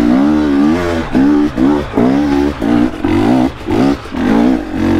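Dirt bike engine on the move, the throttle opened and closed about twice a second, so the engine note climbs and drops in short surges.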